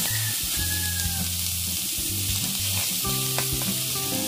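Pork sisig sizzling in margarine on a hot cast-iron sizzling plate, a steady hiss, with a few light clicks of a metal spoon against the plate as it is spread, mostly in the second half.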